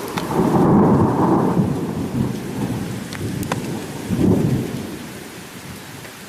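Thunderstorm: thunder rumbling over steady rain. A loud rumble in the first second and a half slowly dies away, a shorter rumble comes about four seconds in, and then only the hiss of rain is left.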